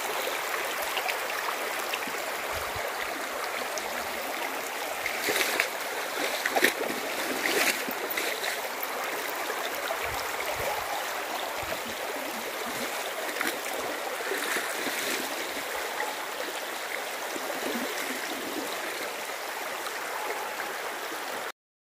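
Shallow, rocky, clear-water river babbling and rushing over stones in a steady wash, with a few brief louder splashes in the middle. The sound cuts off suddenly near the end.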